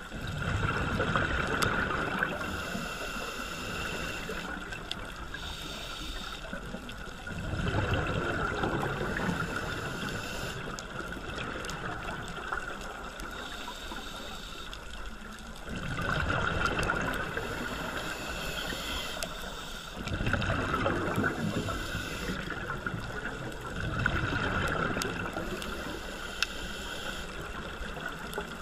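A scuba diver breathing through a regulator, heard underwater: a bubbling exhalation surges up about five times, several seconds apart, over a steady hiss.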